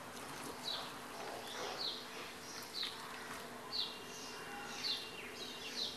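A small bird chirping again and again: short, high chirps that fall in pitch, about one a second, faint, over a steady low hum.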